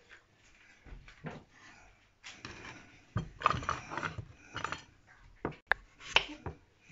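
Irregular knocks and scraping of utensils and a potato on a wooden chopping board, loudest a few seconds in, with a knife cutting into a raw peeled potato near the end.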